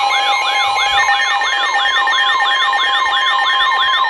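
Emergency alert signal: a siren-like tone sweeping up in pitch over and over, about three times a second, over steady alarm tones, with another higher steady tone joining about a second in.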